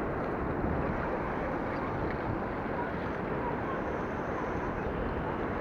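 Steady rush of fast river water flowing below a hydroelectric dam, an even noise with no breaks.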